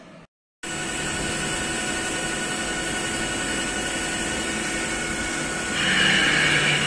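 CNC machining centre milling with a face mill under flood coolant: a steady spindle whine over cutting and coolant noise, starting abruptly, with a louder hiss for about a second near the end.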